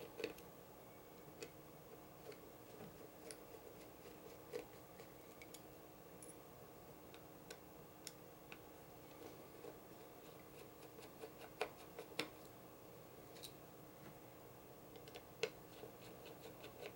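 Faint, scattered clicks and light ticks of small metal parts and screws being handled as a Cold Steel Recon 1 folding knife's handle is unscrewed and taken apart, with a few sharper clicks about two-thirds of the way in and near the end. A faint steady hum lies underneath.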